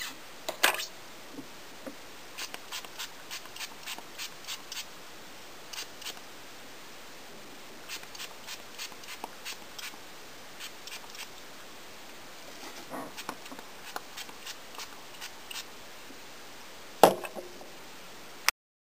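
Short, sharp clicks in irregular runs of a few a second, with a louder knock about a second in and another near the end.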